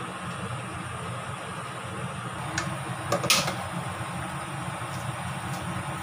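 Kitchen utensils handled over a frying pan: a few sharp clicks and one louder clack a little past three seconds in, then light snips as kitchen scissors cut spring onion into the pan. A steady low hum runs underneath.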